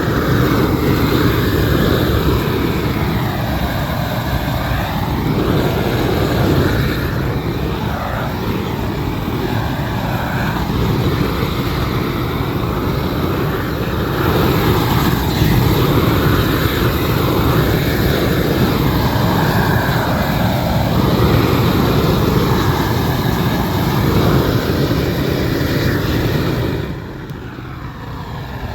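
Gas torch burner roaring steadily as bitumen waterproofing membrane (Isogam) is heated and torched onto a roof, its tone shifting as the flame is moved over the surface; it drops away about 27 seconds in.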